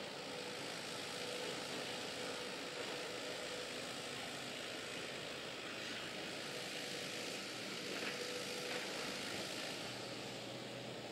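JCB 8085 midi excavator's diesel engine working steadily, heard from some distance as an even drone with a faint tone that comes and goes, and a few faint knocks midway and later as the bucket digs and dumps clay.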